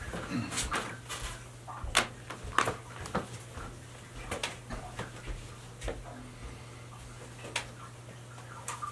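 Irregular light clicks and knocks of things being handled while a cloth towel is fetched, over a steady low electrical hum.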